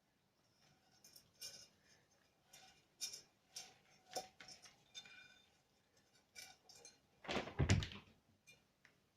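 Dishes and kitchenware being taken out and handled: a run of clinks and knocks, with one louder, heavier thud about seven and a half seconds in.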